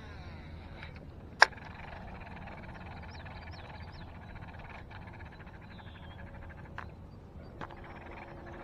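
Quiet lakeside ambience: a faint, steady trilling chorus of frogs, with a few short high chirps about three seconds in. One sharp click about a second and a half in is the loudest sound.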